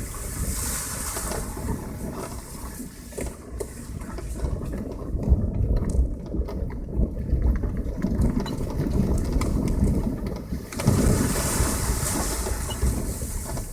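Passenger car driving on a country road: a steady low rumble of engine and tyres with scattered knocks and rattles, and twice a brief rush of hiss.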